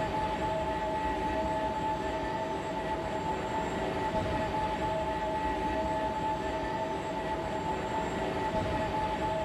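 Steady industrial scrap-yard ambience: a continuous machinery drone with two held tones over a low rumble, unchanging throughout.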